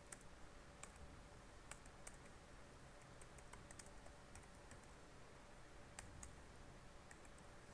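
Faint computer keyboard typing: scattered, irregular key clicks as a phrase is typed.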